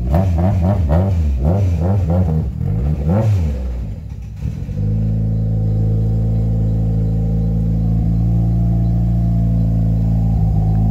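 Turbocharged Toyota 4A-GE 20-valve four-cylinder engine in a 1986 KE70 Corolla wagon, revved in quick repeated throttle blips for about four seconds. It then drops back and settles into a steady idle.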